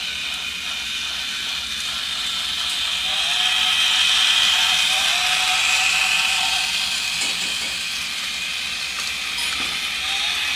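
Toy train running along its track: a steady hiss that grows louder in the middle and then eases off again.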